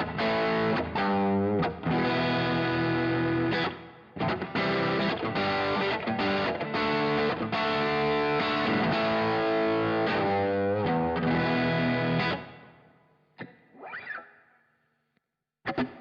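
Fender Stratocaster electric guitar played through an overdrive pedal, chords and single notes with a crunchy drive. About three-quarters of the way in the playing stops and rings out, a few faint notes follow, and the playing starts again right at the end.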